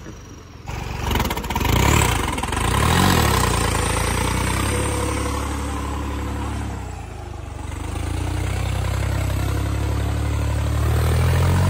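Tractor's diesel engine revving hard under heavy load as it churns out of deep mud. It jumps in level about a second in, rises and falls in pitch over the next few seconds, then runs on steadily, easing briefly and climbing again near the end.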